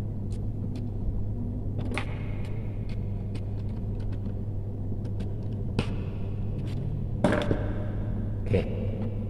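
Small clicks and taps from a screwdriver and stiff electrical wire being handled while a wire is fastened into a float switch's screw terminal. A steady low hum runs underneath, and the clicks come closer together near the end.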